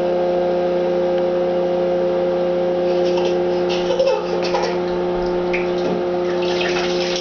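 Small splashes of bath water and plastic stacking cups knocking together as a toddler plays in the tub, over a steady hum at two fixed pitches.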